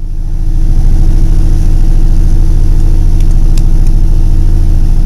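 Helicopter engine and rotors heard from inside the cabin. They grow louder about half a second in, then hold a loud, steady drone.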